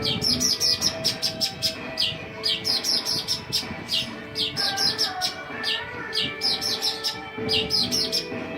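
Long-tailed shrike (cendet) chirping: rapid runs of short, sharp chirps, each dropping quickly in pitch, coming in clusters of several a second throughout.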